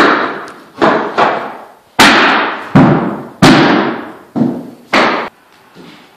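A mallet striking a flooring nailer: about eight hard, irregularly spaced blows in five seconds, each ringing out in a bare, echoing room, stopping a little after five seconds in.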